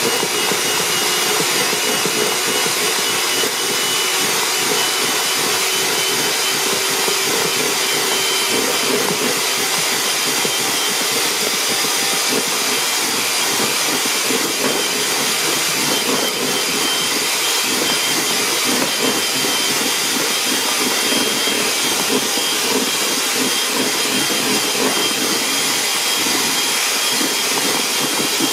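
Electric hand mixer running steadily, its twin beaters whipping egg whites to firm peaks in a plastic bowl.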